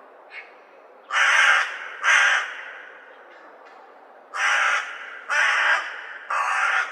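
Crow cawing: two loud harsh caws about a second apart, then after a pause a series of three more, each about half a second long.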